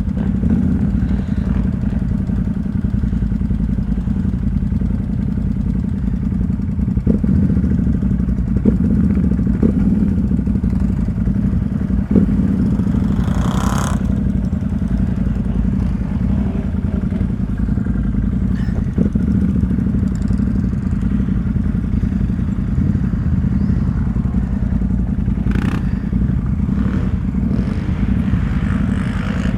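ATV engine running steadily at low revs, with a few sharp knocks and rattles from the machine.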